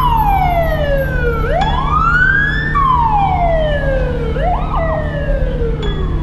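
Police car siren wailing in slow sweeps, its pitch rising and falling over about a second and a half each way. A short quick blip comes about four and a half seconds in, all over a steady low hum.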